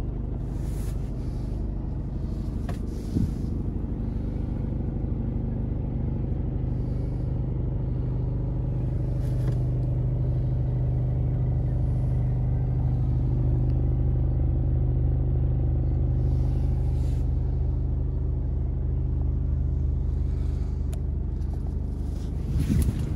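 Mercedes Actros 2545's 12.8-litre straight-six diesel idling steadily in neutral, heard from inside the cab. A single knock about three seconds in, and a few brief knocks near the end.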